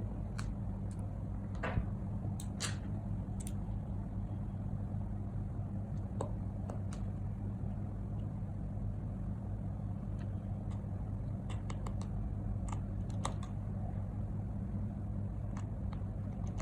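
Steady low hum with sparse, faint small clicks of tools and small parts being handled during laptop reassembly.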